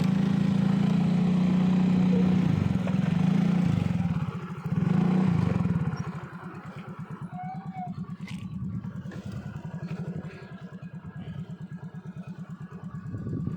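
Motorcycle engine running close by: loud for the first six seconds, its pitch dropping and rising again about four seconds in, then carrying on more quietly and steadily.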